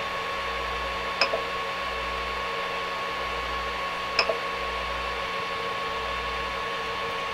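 Creality Ender 5 Pro 3D printer running with a steady hum and whine from its stepper motors and fans as the bed is lowered. Two short clicks come about a second and about four seconds in.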